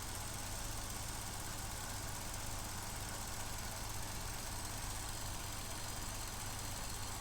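Vauxhall Corsa E's 1.4 Ecotec four-cylinder petrol engine idling with a steady low hum. The engine has a misfire and is running lean, logging codes P0300 and P0171.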